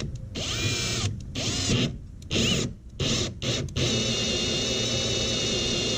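Electric drill with a 1-inch hole saw cutting a hole through the trailer wall: the motor whines up in a few short bursts with brief stops, then runs steadily from about four seconds in.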